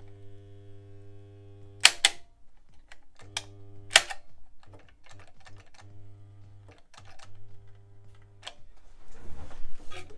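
Steady electric hum from the bartacker's new sewing-machine motor, cutting out and coming back several times, with sharp clicks and knocks of hands working on the machine, the loudest about two seconds in.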